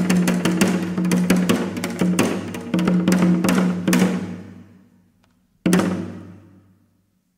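A small live band led by drums plays a run of drum strokes over a held bass note. The run stops and dies away about four and a half seconds in, then one more full-band hit rings out and fades.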